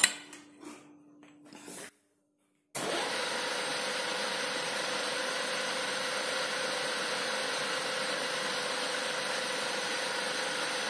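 A few metal clinks as the steel shaft in the spindle is handled, then, after a brief gap, a milling machine running steadily with a constant hum, its spindle turning the newly fitted shaft.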